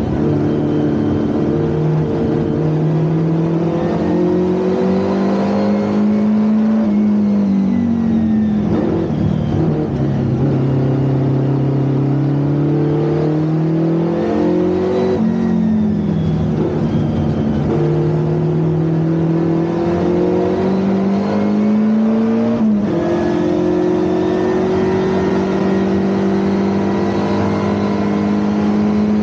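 Historic Ford Anglia 1200 race car's four-cylinder engine running hard under load. Its pitch climbs steadily, then falls back three times as the car shifts gear or lifts, most sharply about two thirds of the way through.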